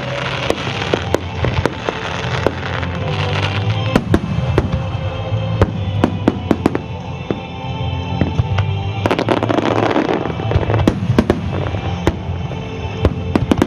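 Aerial fireworks shells bursting in rapid succession: many sharp bangs throughout, with a burst of dense crackling about nine seconds in, over music.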